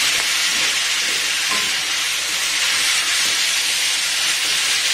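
Chicken feet frying with garlic and onion in oil in a wok, a steady sizzle as they are stirred with a wooden spatula.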